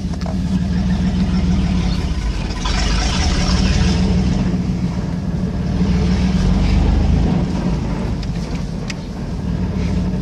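Pickup truck engine running and revving, rising in loudness several times with the throttle, with a few sharp knocks near the end.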